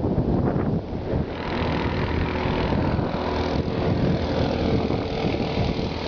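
Wind rushing over the microphone of a camera carried on a moving bicycle: a steady low rumble with hiss that grows brighter about a second in.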